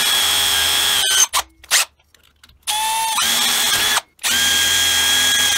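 Cordless drill with a 1/8-inch carbide bit drilling into the spring steel of an oscillating-tool blade, run in bursts of a steady whine. It stops about a second in, gives two quick blips, then runs again for a second or so in the middle and once more from just after the middle on.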